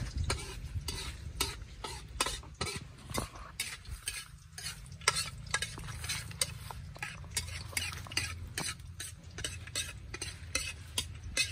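Metal spatula stirring in a metal wok, scraping and clacking against the pan two or three times a second, while chopped pieces fry in oil with a light sizzle.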